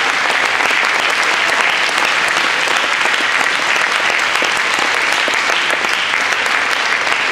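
A church congregation applauding: dense, steady clapping from many hands.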